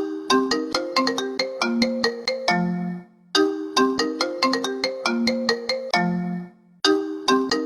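Marimba-style phone ringtone: a quick phrase of short struck notes, repeating about every three and a half seconds, twice and into a third.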